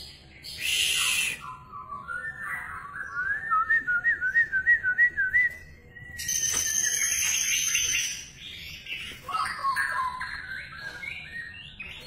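Pied white-rumped shama (murai batu blorok) singing a varied song. It opens with a harsh rasping note, then a long wavering whistled trill that climbs slowly in pitch, then buzzy harsh phrases and quick short whistles.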